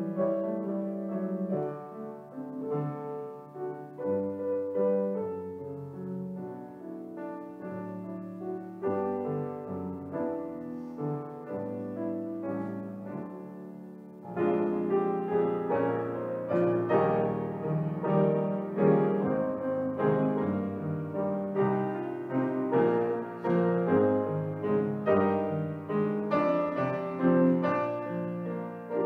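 Piano playing a slow, classical-style piece, soft at first and growing fuller and louder about halfway through.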